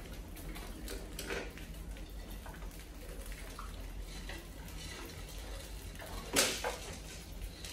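Rodents scrambling over a plastic water-jug trap and its wooden ramp: light clicks and scratches of claws on plastic and wood. A sharp knock about six and a half seconds in as one drops down the jug's neck into the trap.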